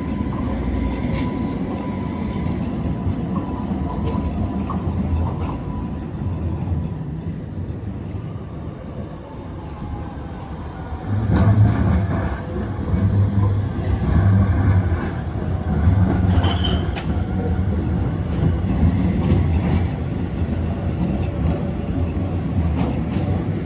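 Leipzig street trams rolling over the rails: a steady low rumble with a faint high whine in the first few seconds, then, about 11 seconds in, a louder rumble as a Leoliner low-floor tram passes close by.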